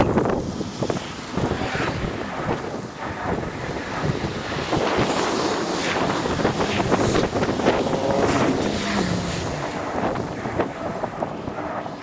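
Wind buffeting the microphone of a camera on an electric scooter riding along a city street, a steady rough rush, sped up, with road and traffic noise beneath.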